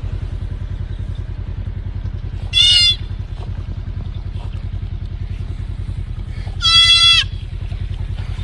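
Deer fawn bleating twice, short high-pitched cries about four seconds apart, over a steady low rumble.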